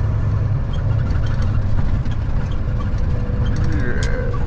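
Semi-truck's diesel engine running steadily under way, a low drone heard from inside the cab with road noise, with faint ticking about twice a second and one sharp click near the end.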